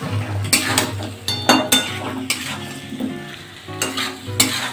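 A flat metal spatula scraping and turning chunks of yam, potato and soya around a metal kadai while the masala sizzles as it is fried down. There are repeated scrapes, often in pairs, about eight in all.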